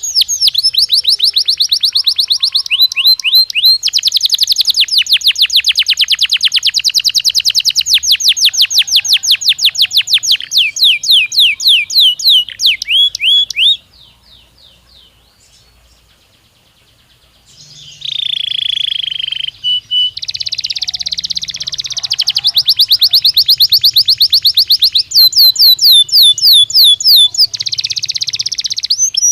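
Belgian canary singing long fast trills of rapidly repeated high notes. The song breaks off for a few seconds near the middle, then resumes with a held whistled note and more trills. This is stimulus song played to prompt a canary to answer.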